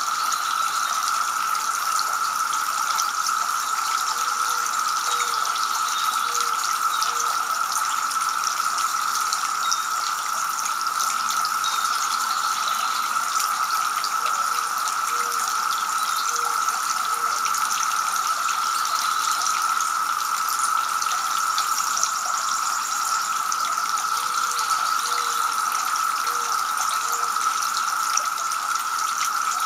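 Two-tier garden fountain running: a steady trickle and splash of water spilling from the upper bowl into the basin below.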